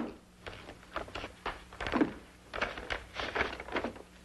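A string of short, irregular knocks and rustles as things are handled at a desk: papers, an envelope and desk items being moved about.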